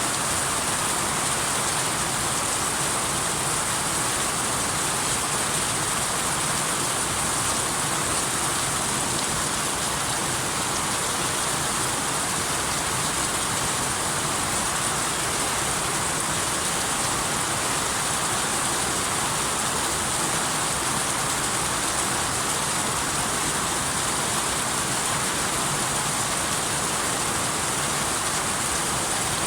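Rain falling steadily, an even hiss of water with no breaks and no thunder.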